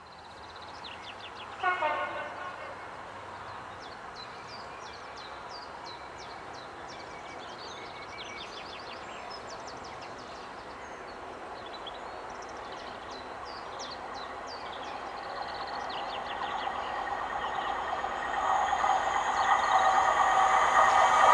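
An approaching train, growing steadily louder over the last several seconds, with birds singing through the middle. A short train horn or whistle blast with a slightly falling pitch sounds about two seconds in.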